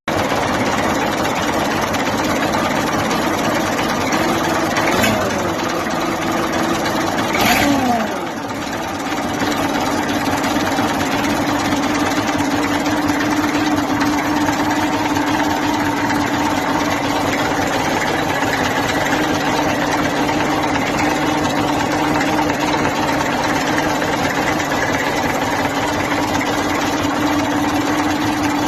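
Perkins A6.305 six-cylinder diesel in an EBRO 684E tractor, fitted with a positive-displacement supercharger, running. The revs fall about eight seconds in, then the engine runs steadily with a constant tone.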